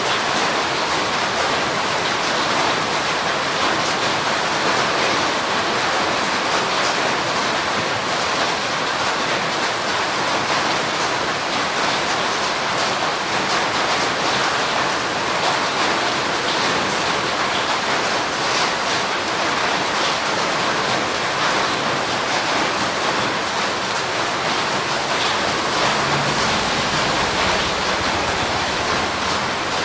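Steady heavy rainfall, a dense even hiss with faint spatters of individual drops.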